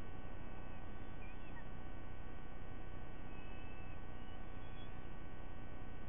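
Steady electrical mains hum on the nest camera's audio, a stack of unchanging tones over a low noise floor. A few faint short high chirps come through in the background.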